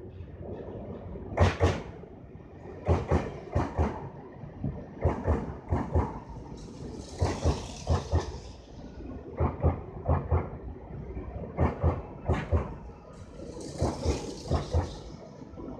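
Electric commuter train running into a station platform, its wheels clacking over the rail joints in clusters of knocks about every two seconds over a low rumble. Two bursts of hiss come in, one about halfway through and one near the end.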